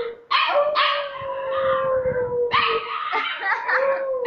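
Husky puppy howling, one of its first howls: one long howl slowly falling in pitch, then shorter, broken howls.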